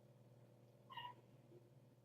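A kitten gives a single short, faint meow about a second in, over a low steady hum.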